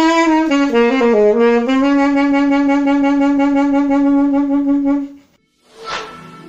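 Saxophone playing a short descending run of notes, then holding one long low note for about three seconds before it stops. About a second later comes a brief swish.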